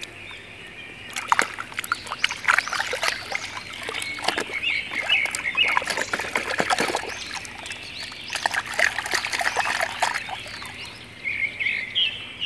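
Muddy water and wet mud splashing and squelching in irregular bursts as a plastic toy truck is pushed by hand through a mud puddle. Birds chirp in the background near the start and end.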